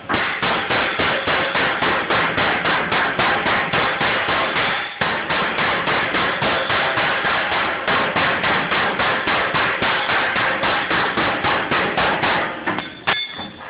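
A hammer strikes a handmade steel bumper in rapid, steady blows, about four a second, with a brief pause about five seconds in. The blows stop near the end, and one last strike rings like struck metal.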